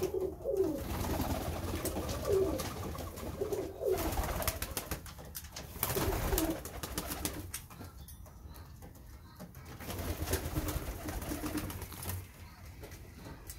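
Domestic pigeons cooing over and over in low, rolling calls, with bursts of wing flapping as birds take off and land on the perches.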